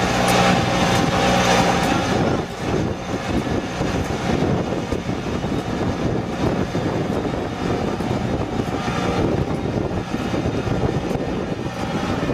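Engine of a ride-on rice transplanter running steadily as the machine drives through the paddy planting seedlings; about two seconds in the sound turns to a rougher, noisier rumble.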